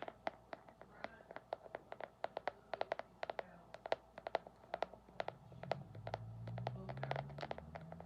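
Rapid tapping on a hard object, several taps a second in uneven runs, each tap ringing briefly. From about halfway through, faint muffled voices from outside the room come in under the tapping.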